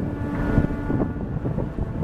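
Steady machinery hum from the cruise ship MS Artania passing close by, mixed with low rumbling wind buffeting the microphone. The hum's tone drops out about a second in, leaving the wind rumble.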